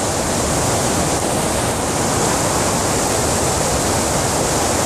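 Shallow stream water rushing steadily over rocks, close to the microphone.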